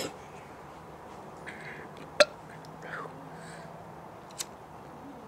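A man coughing after inhaling smoke: a sharp cough right at the start and another about two seconds in, with soft breathy exhales between them.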